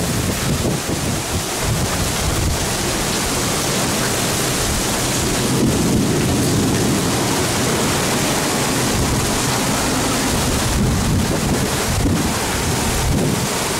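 Heavy rain pouring down in a strong windstorm, a steady loud downpour with gusting wind rumbling on the microphone.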